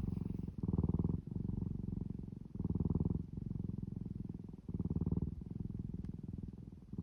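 Domestic cat purring: a rapid, steady buzz that swells louder about every two seconds.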